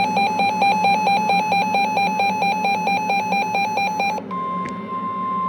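Weather radio alarm sounding: a loud electronic two-pitch warble switching about eight times a second stops abruptly about four seconds in. A steady single tone near 1 kHz follows, the 1050 Hz NOAA Weather Radio warning alert tone that precedes a warning message.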